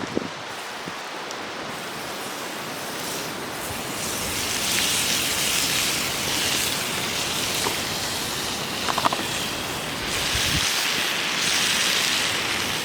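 Food sizzling on a hot iron griddle over a wood fire: a steady frying hiss that swells about four seconds in and again near the end, with a few light clicks.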